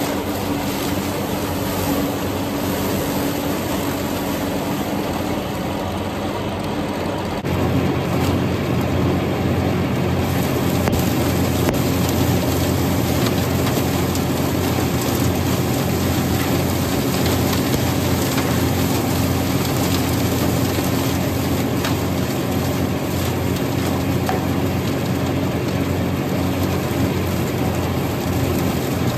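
Allis-Chalmers farm tractor engine running steadily while driving a flail chopper through corn stalks, a continuous mechanical drone. About seven seconds in it gets louder, with a heavier low hum added.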